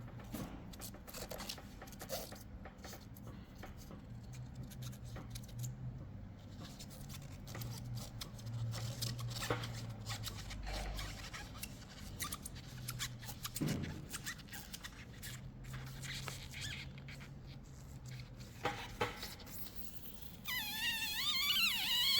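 Faint handling sounds of an adhesive RGB light strip being pressed onto a skateboard deck: scattered small clicks and taps over a low hum. A voice comes in near the end.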